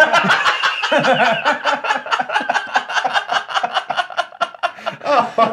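Several men laughing hard together, in quick repeated bursts of breathy laughter that overlap.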